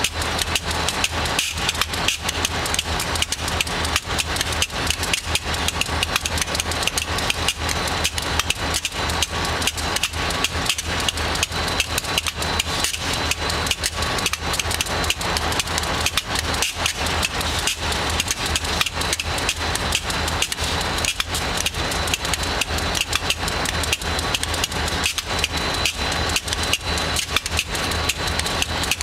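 Diesel-electric freight locomotive idling close by: a steady low engine hum under a dense, irregular clatter, with a faint steady high whine.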